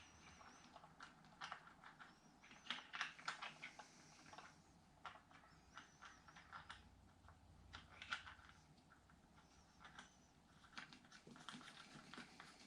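Near silence with faint, scattered small clicks and taps from hands handling parts.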